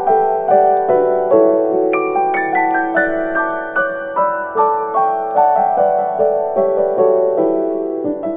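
Gentle background piano music: a slow melody of single notes, each struck and left to fade.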